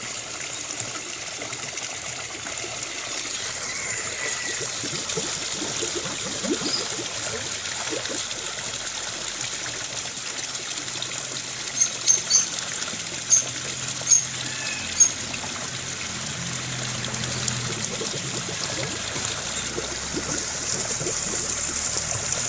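A stream running steadily in the forest, with birds calling over it: a short gliding call a few seconds in and a quick series of about six sharp, high chirps around the middle.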